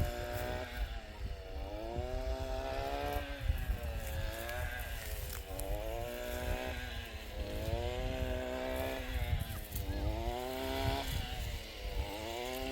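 A small engine revving up and easing off again and again, its pitch rising and dropping back about every two seconds over a low rumble.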